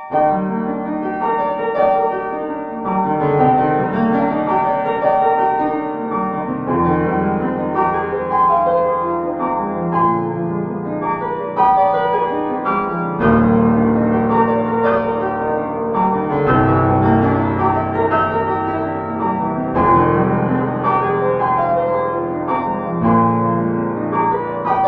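Background piano music: an instrumental intro of sustained chords and melody, the bass note changing every few seconds.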